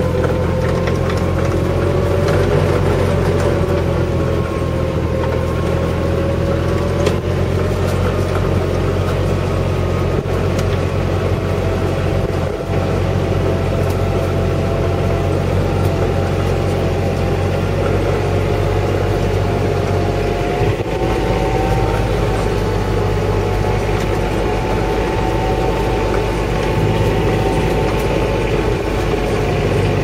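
A small vehicle's engine running steadily while driving, with a whine that drifts gently up and down in pitch.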